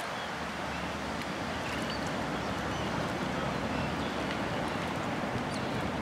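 Wind buffeting the microphone, a fluctuating low rumble over outdoor ambience, with a few faint high chirps here and there.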